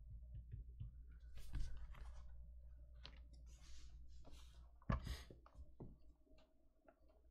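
A cardboard trading-card box and a small box cutter being handled: scrapes and rustles, a sharp knock about five seconds in, and light clicks as the blade is worked into the box's seal.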